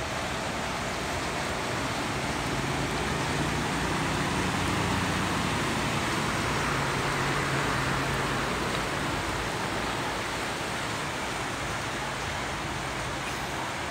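Dump truck's engine running as it drives past through knee-deep floodwater, its wheels pushing through the water, growing louder to a peak in the middle and fading away after about nine seconds. Under it a steady hiss of rain and water.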